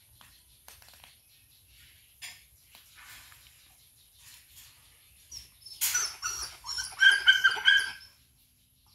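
Cat crunching dry kibble with faint clicks. About six seconds in, an animal gives a loud run of short, high-pitched whining cries that lasts about two seconds and then stops.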